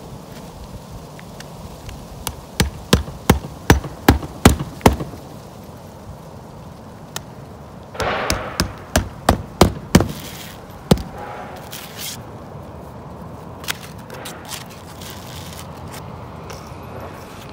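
Hammer nailing roofing nails through asphalt ridge cap shingles: a run of about eight sharp strikes, about three a second, then after a pause a short scrape followed by a second run of strikes.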